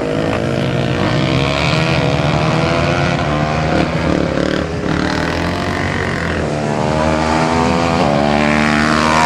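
400cc racing quad engines revving hard on a dirt track, the pitch rising and falling as the riders accelerate and back off through the turns, with a steady climb in pitch near the end.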